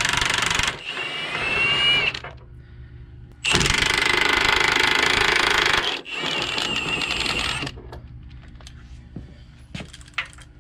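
Cordless Milwaukee M18 Fuel impact wrench hammering suspension bolts loose, in two bursts of a couple of seconds each. After each burst comes a quieter, higher motor whine as the freed nut spins off without hammering. A few light metallic knocks follow near the end.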